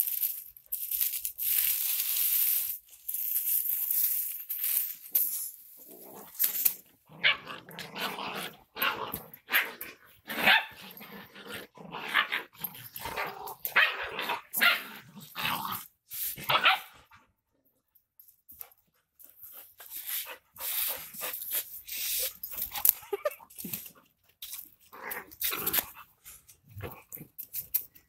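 Dry palm frond rustling and crackling under a Rottweiler's paws for the first few seconds, then Rottweilers growling and barking in many short bursts as they scuffle, with a brief lull partway through.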